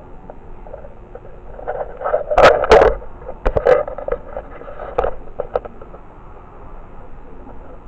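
Handling noise from a handheld camera: rubbing and fumbling on the microphone with a run of sharp knocks, loudest about two and a half seconds in, then a few single knocks later.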